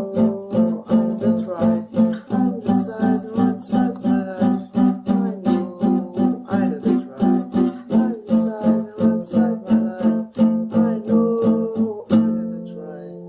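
Music: a guitar strummed in a steady rhythm of about three strokes a second, with a melody line over it, ending on a held chord near the end.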